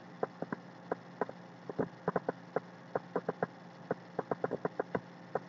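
Light, irregular tapping clicks, several a second, over a faint steady hum.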